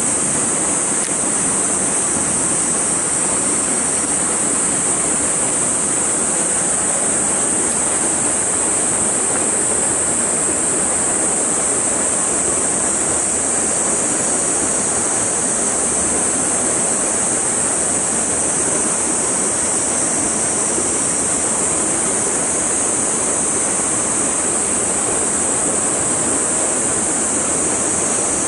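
Steady rush of a stream flowing over rock, an unbroken noise with a constant high hiss above it.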